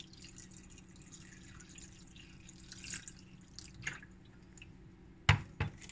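Water being poured from a plastic jug into a bowl of soaking jellyfish strips, splashing and dripping; near the end, two sharp knocks close together.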